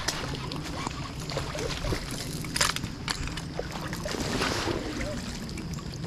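Creek water sloshing and splashing as a small hooked brown trout is brought in and scooped into a landing net, over low rumbling handling noise; the sharpest splash comes about two and a half seconds in.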